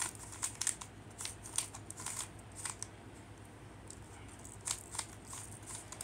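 Plastic Rubik's cube being turned by hand, its layers clicking and clacking in quick irregular runs, a short pause, then a few more turns near the end.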